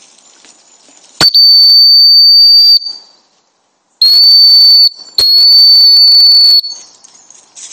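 Dog whistle blown three times to recall a dog: loud, steady, high single-note blasts, a long one, a short one, then another long one.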